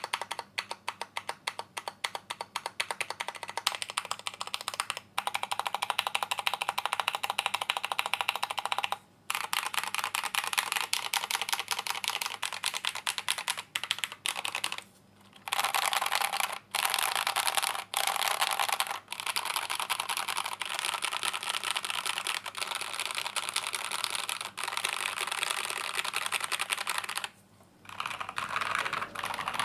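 Typing test on an Akko MOD001 tenkeyless keyboard in stock configuration, with Jwick Black linear switches and Akko ASA-profile keycaps. It is a fast, continuous run of keystroke clacks, broken by a few short pauses about 5, 9, 15 and 27 seconds in.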